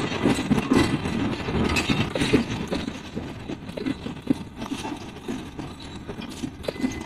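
Awam Express passenger coaches rolling past, their wheels clattering over the rail joints in a quick, irregular run of clicks and knocks over a low rumble, slowly getting quieter.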